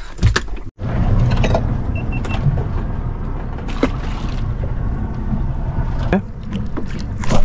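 Yamaha outboard motor idling, a steady low rumble that starts after a short cut just under a second in and eases off about six seconds in.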